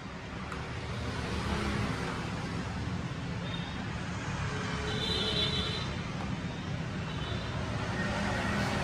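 Steady low rumble of road traffic in the background, with a few faint, brief high tones about five seconds in.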